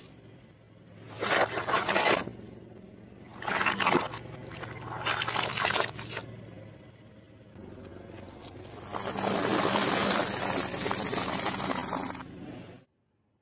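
A car tyre rolls over objects and crushes them in several separate bursts, the last about three seconds long, over the steady low hum of the car's engine. The sound cuts off suddenly near the end.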